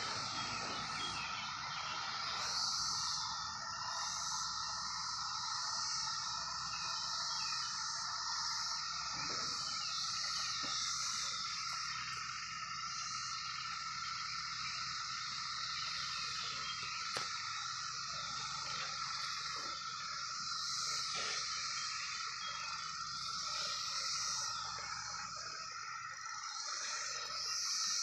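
Chorus of 17-year periodical cicadas: a steady drone held on one pitch, with a higher buzzing that swells and fades every few seconds.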